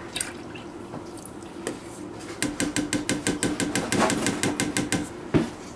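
Stick blender run briefly in a pot of cold-process soap batter as rice milk is added. Its motor hum comes with a fast, even rattle of clicks for about three seconds, starting a little over two seconds in.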